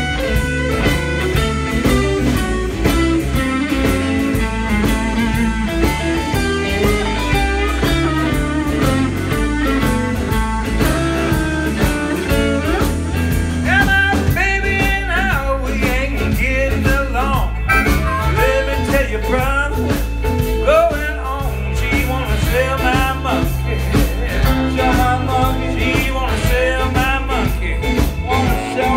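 Live blues band playing: electric guitars over bass and drums, with a harmonica. Bending pitched phrases come in about halfway through.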